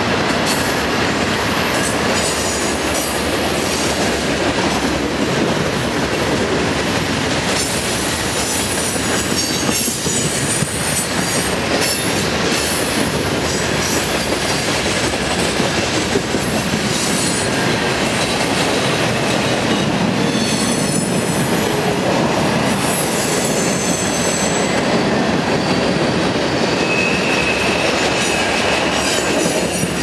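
A long, slow-moving CN freight train's cars rolling past close by: steady rumble of steel wheels on rail, with high-pitched wheel squeals coming and going, strongest about a third of the way in, again past the middle and near the end.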